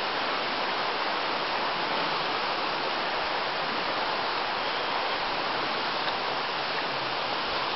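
Flowing water of a nearby stream, a steady, even rushing with no breaks or changes.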